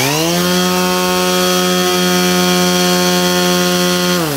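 Cordless angle grinder spinning an 18-inch model-airplane propeller. It winds up quickly to a loud, steady hum, then winds down in pitch near the end. The large propeller is a heavy load that, by the builder's account, draws too much current.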